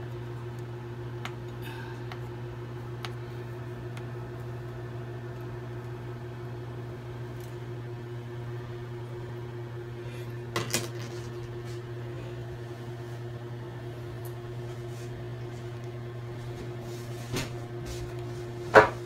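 A steady low mechanical hum, like a running appliance or fan in a small room, with a few light clicks about halfway through and again near the end, the sharpest and loudest just before the end.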